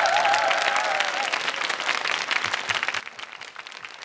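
Studio audience applauding at the end of a song, with the last held notes of the music or voice fading out in the first second or so. The clapping drops off sharply about three seconds in and goes on more quietly.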